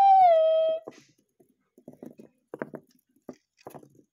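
A person's voice holds a long sung "woo" for about the first second, falling slightly in pitch. After it come faint, scattered small clicks and scratches from a hamster scrabbling and nibbling around a clear plastic hamster wheel.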